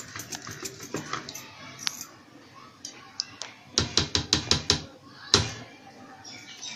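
Wooden churner (ravi) knocking against a steel pot as buttermilk is churned, in quick irregular clicks. After a lull, a steel ladle clinks against the pot in a fast run of about seven knocks, then one louder knock.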